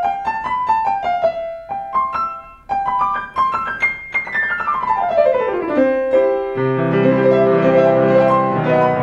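Yamaha C7X 227 cm grand piano, lid raised, being played: short phrases of single notes, then a fast descending run about four seconds in, ending in full chords held low in the bass.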